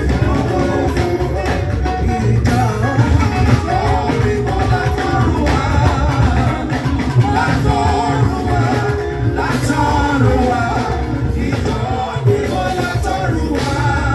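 Live church praise music: voices singing over a band with drums and a strong bass line.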